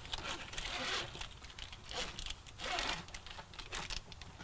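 Crinkling and scratchy rustling with scattered light clicks from hands working a wiring harness and zip ties around the fuel pump.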